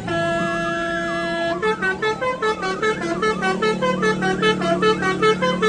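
Telolet-style multi-tone bus horn playing a tune: a chord of several tones held for about a second and a half, then a rhythmic run of short toots, about three a second, stepping in pitch, with a warbling tone wavering over them.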